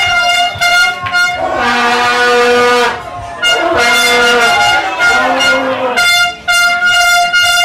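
Football fans' hand-held horns blaring to celebrate a goal. A high air-horn blast and a lower fan horn take turns in long held notes.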